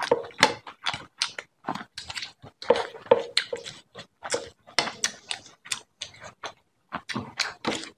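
Close-miked open-mouth chewing of rice and fish curry, with wet smacks and short irregular clicks, several a second. Fingers squelch as they mix curry into rice on the plate.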